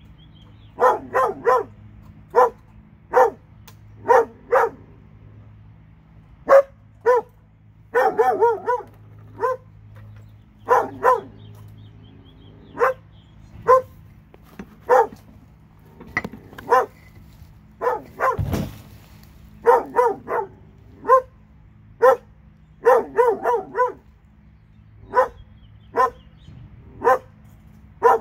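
A dog barking over and over, single barks and quick runs of two to four, every second or two, over a faint steady low hum. There is one low thump about two-thirds of the way through.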